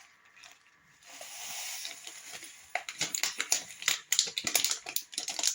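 Dry instant porridge poured from its packet onto a plate. A soft pouring hiss about a second in is followed by a run of crinkles and crackles from the packet.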